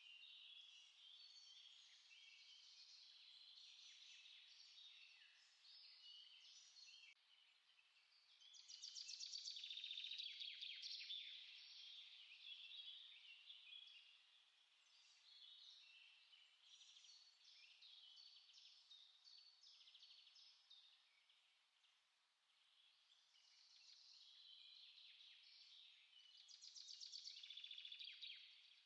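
Small songbirds chirping and singing continuously at a low level, with louder rapid trills about nine seconds in and again near the end.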